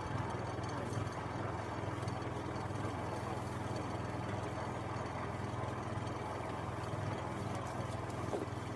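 Steady low hum of a running engine, unchanging throughout.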